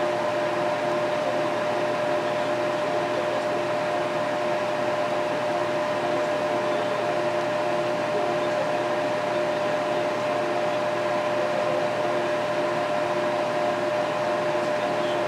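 Water-cooled PC's two San Ace 3000 rpm radiator fans running steadily: an even rush of air with a steady whine over it.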